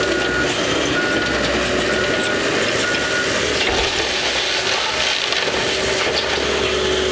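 CAT 312C excavator's diesel engine running under load as it tears into a building: a loud, steady, dense machine noise. A backup alarm gives four short high beeps, about one a second, in the first few seconds.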